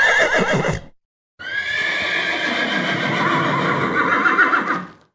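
A horse whinnying twice: a short, wavering whinny at the start, then after a brief pause a long whinny of about three and a half seconds that quavers near its end.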